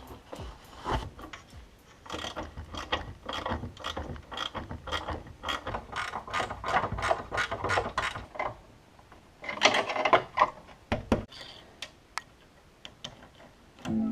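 Hand ratchet clicking in quick runs of strokes, with a louder burst of clicking and rattling about ten seconds in, then only a few scattered clicks.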